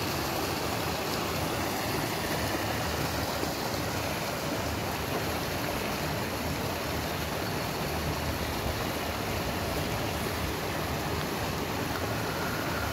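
Creek water flowing: a steady, even rush.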